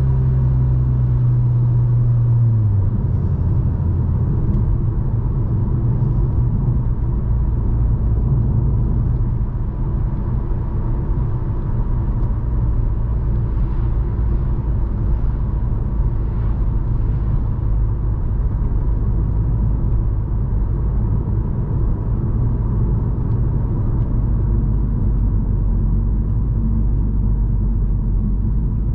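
Stage 2 remapped VW Scirocco on the move, heard from the driver's seat. The engine note drops about two and a half seconds in, then settles into a steady low drone of engine and road rumble.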